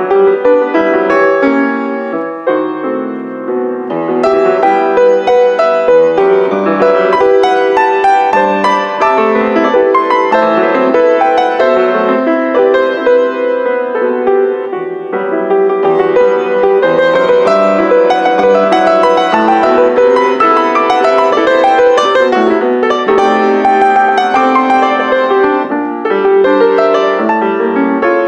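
Grand piano played four hands: a dense passage of many overlapping notes across the keyboard, growing fuller and louder about four seconds in.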